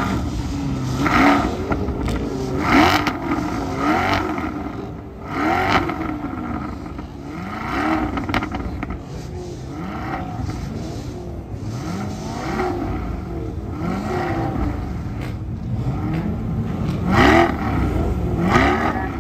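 Many Corvette engines revving at once, with overlapping throttle blips rising and falling in pitch. The din swells louder several times.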